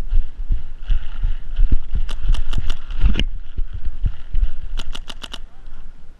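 Etek 5 electronic paintball marker firing low-impact .50 cal paint in two quick strings of about five or six shots each, around two seconds in and again around five seconds in. Dull thuds of running footsteps go on underneath.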